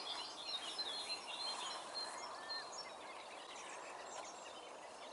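Songbirds singing and chirping, a faint mix of short calls and trills, over a light background hiss.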